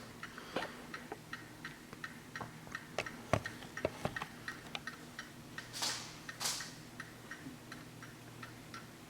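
Hermle skeleton mantel clock movement ticking steadily, about four ticks a second. A couple of soft knocks come about three and four seconds in, and two short swishes just before the middle.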